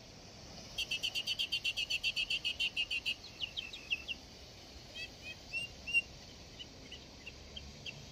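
A small bird singing: a fast trill of high chirps, about eight a second, for two seconds, then a few falling notes and scattered short chirps. Faint low background noise runs underneath.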